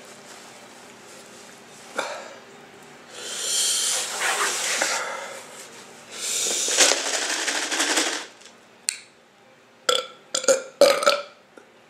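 A person burping: two long burps of about two seconds each, followed near the end by a run of short clicks and smacks.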